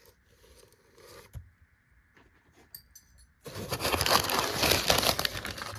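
A few small clicks of tools being handled, then, about three and a half seconds in, loud irregular rustling and crinkling of packaging as the next tool is unwrapped.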